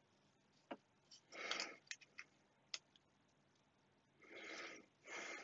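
Faint handling of a small LCD display glass panel: two light clicks and three brief rustles, the last near the end.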